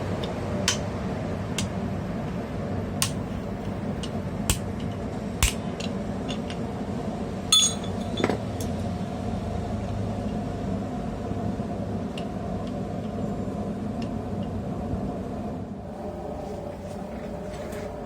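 Metal-on-metal clinks and strikes as mild steel is worked at the anvil and jig: single sharp hits about every second or so, a couple close together about eight seconds in, then fewer. A steady low background hum runs under them.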